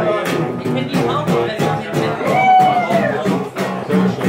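Live acoustic-style duo music: a guitar strummed in a steady beat, with a woman singing and holding a long note partway through.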